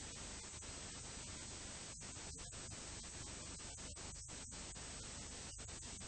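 Steady tape hiss from a blank, signal-free stretch of an old recording, broken by several split-second dropouts.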